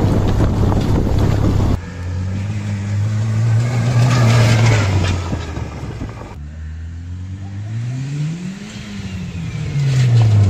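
Homemade off-road buggy's engine running, its note rising and falling with the throttle, broken by abrupt changes a couple of times. The first couple of seconds are mostly loud wind buffeting the microphone.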